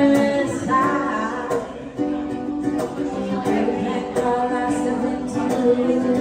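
A woman singing a song while strumming a ukulele, her sustained notes carried over steady chord strokes.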